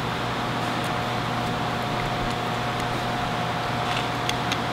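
Steady background hum and hiss of a running machine, with a faint steady whine above it; a few faint light clicks near the end.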